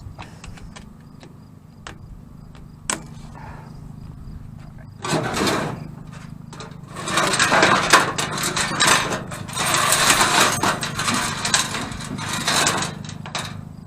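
Flexible stainless-steel exhaust pipe being handled and worked onto a diesel heater's outlet: rough metallic scraping and rattling, a short burst about five seconds in and a longer stretch from about seven seconds until near the end. Under it runs the steady drone of a lawn mower.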